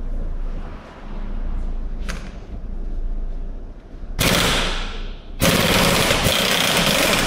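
Pneumatic 3/4-inch drive impact gun hammering at a heavily corroded rear drive shaft nut to break it loose. It runs in two bursts: a short one about four seconds in, then a longer one from about five and a half seconds.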